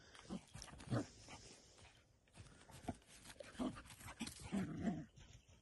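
A large dog and a puppy at play, making a few short dog vocal sounds spread through, the longest one near the end.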